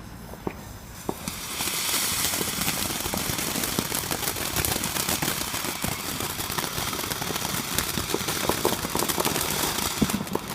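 A firework going off. About a second in it starts a steady hiss, thick with fast crackling, that runs on for several seconds.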